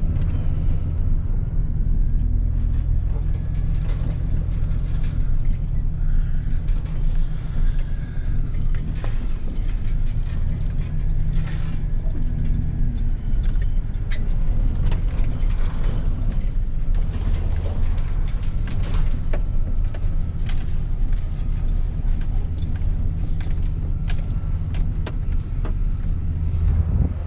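A vehicle engine running steadily close by, with scattered light clicks and rattles over it.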